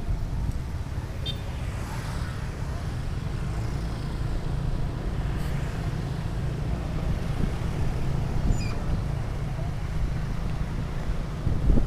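Steady road-traffic noise from a moving vehicle: a continuous low rumble of engines and tyres.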